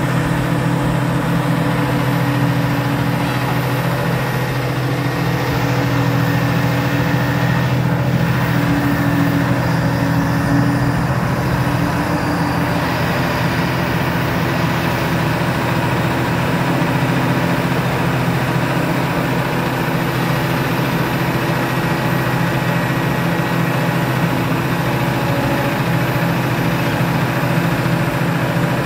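Heavy diesel engine of a tracked telehandler running steadily at low revs as the machine moves slowly off a lowboy trailer.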